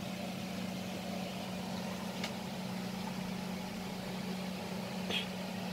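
Quiet steady low hum over a faint hiss, as of a running machine or appliance in the room.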